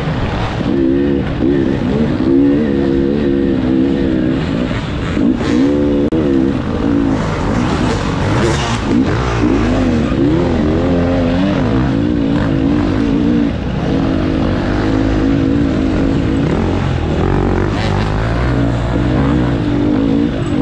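Dirt bike engine heard up close from the rider's helmet, its revs rising and falling constantly as the bike works through a tight trail, with other dirt bikes running just ahead.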